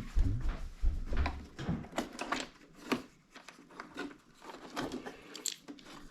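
Plastic housing of a Bissell ProHeat carpet cleaner being handled and its bottom cover worked loose: irregular clicks, knocks and rattles of hard plastic, with a few low thumps in the first second.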